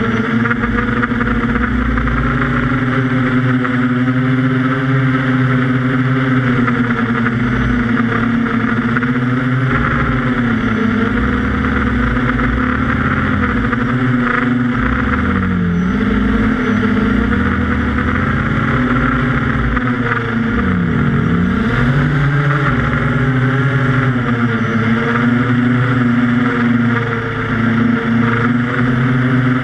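Brushless motors and propellers of a QAV400 quadcopter droning steadily, heard through its onboard camera. The pitch wavers with the throttle and dips sharply and climbs back twice, once around the middle and again about two-thirds of the way through.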